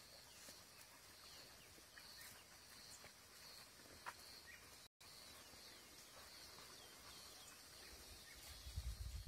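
Near silence: faint outdoor ambience of a high chirp repeating about twice a second, with a few faint short bird-like chirps. A low rumble rises near the end.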